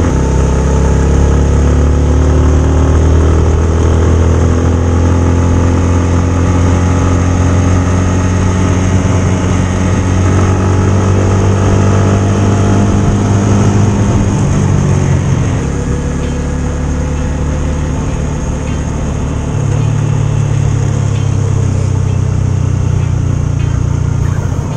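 Motorcycle engine running while riding. Its note drops about two-thirds of the way through, as the throttle eases, and picks up again a few seconds later.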